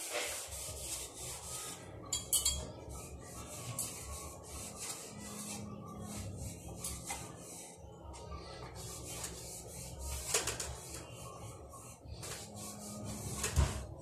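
Cloth wiping along ceiling fan blades in repeated rubbing strokes, with a few knocks as the blades and fittings are handled.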